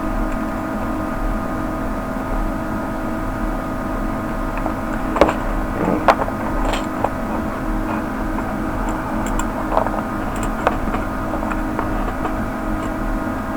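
A handful of light clicks and knocks, most of them between about five and eleven seconds in, from fitting the feet onto an LED cube's circuit board by hand. Under them runs a steady machine hum that holds several fixed pitches.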